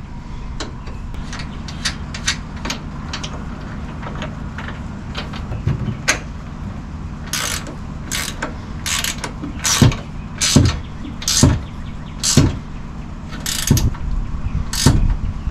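GearWrench ratcheting wrenches tightening a 1/2 inch nut and bolt: light ratchet clicks at first, then louder, regular ratchet strokes about once a second from about halfway in, over a steady low hum.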